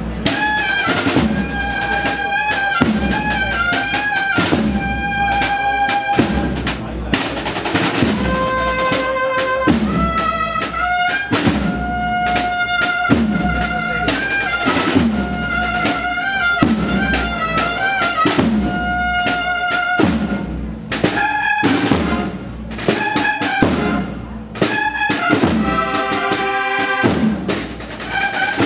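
Cornet-and-drum band (banda de cornetas y tambores) playing a processional march: bugles carry a melody in held notes over a steady drum beat.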